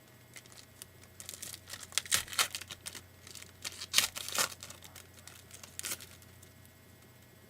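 Trading card pack wrapper being torn open and crinkled in the hands: irregular crackling and rustling, loudest twice in the middle, then quiet.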